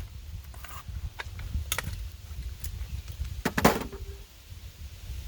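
Scattered clicks and knocks, some metallic, over a steady low rumble, with a louder clatter about three and a half seconds in.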